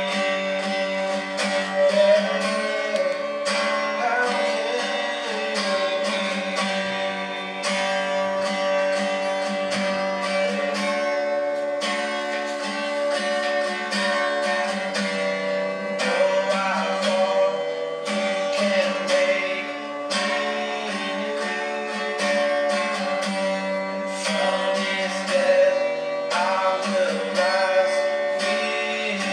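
Acoustic guitar being played with a voice singing over it, coming from a television's speakers.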